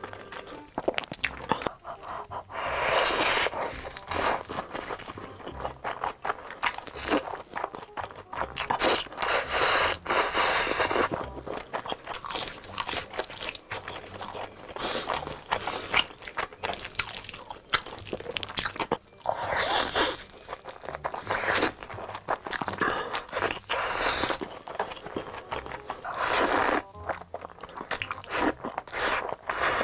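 Close-miked mukbang eating sounds: crunchy bites into crusty cheese sticks and wet chewing, with several louder one-to-two-second slurps of spaghetti in tomato sauce.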